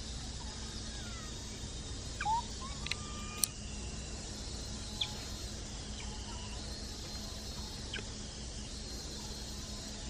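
A few short animal chirps and squeaks, most of them close together a couple of seconds in, with one sharp click among them. They sit over a steady low hum and hiss of outdoor background.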